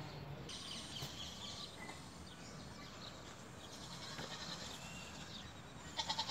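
Outdoor background with faint high chirps, and a short wavering animal call near the end.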